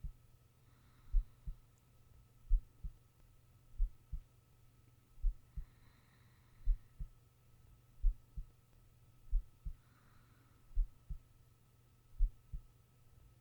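A sleeping person's heartbeat: slow, paired lub-dub thumps about every 1.4 seconds. Three soft breaths come through faintly, about every four to five seconds, over a faint steady hum.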